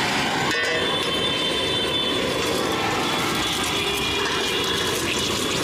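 Steady roar of a gas burner's flame under a steel wok, with an egg frying in the hot oil.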